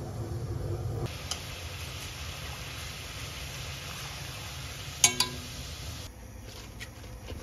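Food sizzling in a pan, a steady hiss that starts suddenly and cuts off about six seconds in. A sharp double clink of a utensil against the cookware comes about five seconds in.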